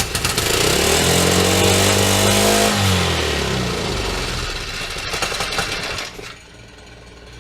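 97 cc mini bike engine running with the choke on: it revs up for about two seconds, drops back, runs on and then cuts out suddenly about six seconds in. It is being tested with a new throttle spring that does not work.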